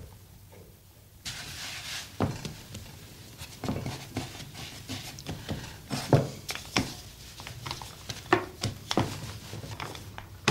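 Kitchen handling sounds starting about a second in: irregular knocks, taps and clicks on a wooden pastry board, with short scrapes, as a mixing bowl is moved and pastry dough is worked on the board.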